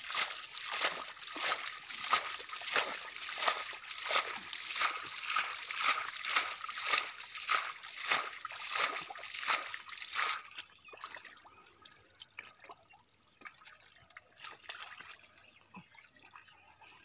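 Hands splashing in shallow muddy water, in a regular rhythm of about two or three splashes a second. The splashing stops about ten seconds in, leaving fainter, irregular sloshing.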